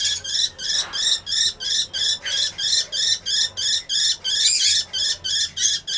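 A lovebird giving rapid, repeated high-pitched squawks, about four a second, while being handled for a DNA sample.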